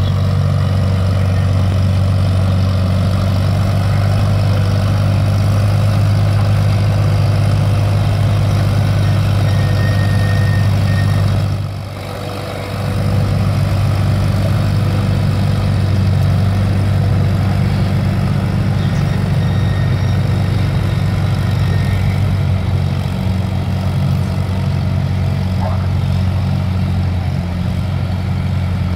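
Antique Farmall tractor engine running hard under load, pulling a weight-transfer sled. A steady, loud low drone that dips briefly about twelve seconds in.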